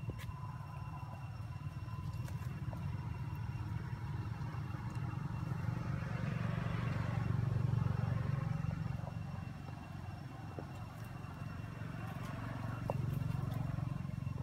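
A motor vehicle passing: a low engine rumble that swells to its loudest about seven to eight seconds in and then fades, with a smaller swell near the end.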